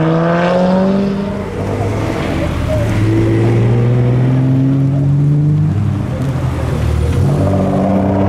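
Modified cars driving slowly past one after another, each engine note rising steadily as the car pulls away. There are three such rising notes: near the start, from about three to six seconds in, and again near the end.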